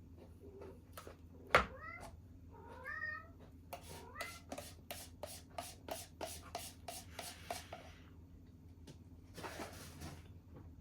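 A cat meowing a few short times, with a sharp click about a second and a half in and a run of quick clicks, about three a second, in the middle.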